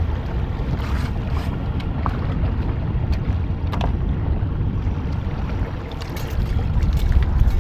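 Steady low rumble of wind buffeting the microphone over a small fishing boat on open water, with a few short knocks near the end.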